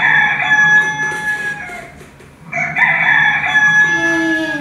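Recorded rooster crowing twice, each crow about two seconds long, the second beginning about two and a half seconds in and dropping in pitch as it ends.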